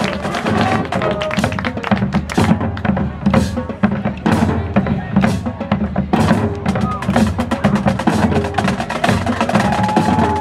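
Marching band drumline playing a percussion break: snare drums, tenor drums and bass drums with rapid sharp stick strikes over a steady drum rhythm.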